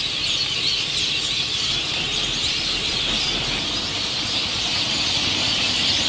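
Dense chorus of a large flock of birds calling all at once: a steady, high-pitched chatter of many overlapping chirps.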